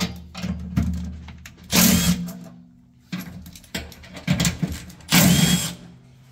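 Cordless impact driver with a nut-driver bit running in short bursts as it backs out the blower motor's mounting bolts. The loudest bursts come about two seconds in and about five seconds in, with lighter clicks of the bit and bolts between them.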